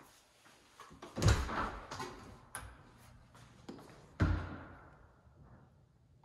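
Two thumps of a door, about a second in and again about three seconds later, each with a short ringing tail. Smaller clicks and rattles, such as a latch or handle, come before and between them.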